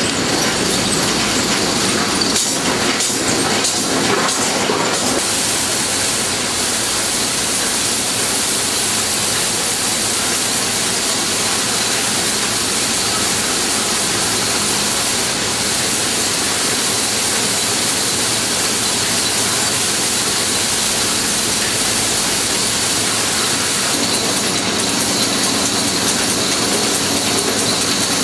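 Dubbed-in train sound effect rather than the model's own sound: a train running with steady rail noise and wheel clatter, with a cluster of clanks a few seconds in and a steady hum joining near the end.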